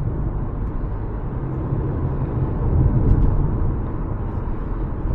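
Cabin noise of a 2024 Subaru Forester on the move: a steady low rumble of tyres and road, a little louder about three seconds in.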